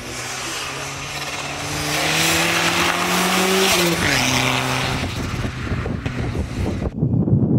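Turbocharged Subaru Justy 1.3 rally car engine pulling hard, its pitch rising steadily for about four seconds. The revs then drop and hold lower, with a loud hiss over the middle part. Near the end the sound changes abruptly to a low, noisy rumble.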